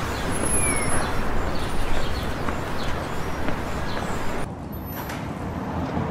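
Street ambience: a steady hiss of traffic with a few faint bird chirps. About four and a half seconds in it cuts abruptly to a quieter, duller background.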